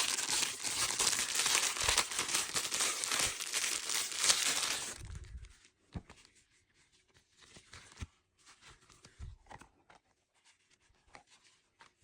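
Packaging being torn open and crinkled, dense and loud for about five seconds, then lighter handling with scattered rustles and taps.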